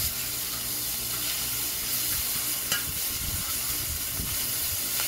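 Bacon sizzling on a ripping-hot steel discada (plow-disc wok) over charcoal as it is stirred and scraped with a metal wok spatula. The spatula clicks against the steel once or twice over the steady hiss.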